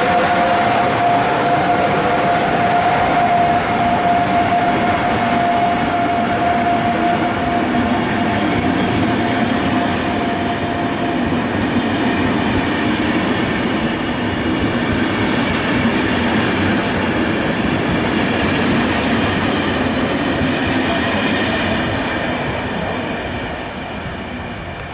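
Passenger coaches of a locomotive-hauled train running past at speed: a steady loud rush and rumble of wheels on rails, with a high thin wheel squeal for several seconds early on. The rolling noise fades as the train draws away near the end.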